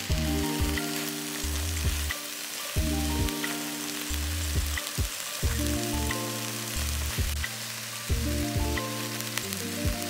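Sliced beef sizzling and frying in a hot pot as it is stirred with chopsticks, with a fine crackle of small pops. Background music of slow held notes plays underneath.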